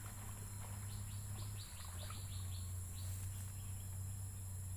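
Steady high insect drone, like crickets or cicadas, over a low steady hum. From about one to three and a half seconds in, a bird gives a quick run of short, falling notes.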